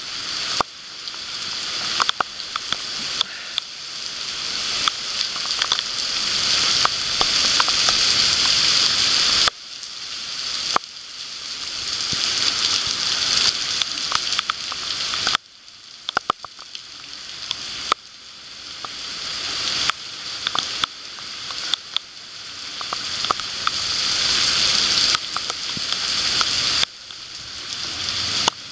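Heavy rain falling, a dense steady hiss with scattered sharp taps of drops close by. The level drops suddenly several times and swells back up over a few seconds each time.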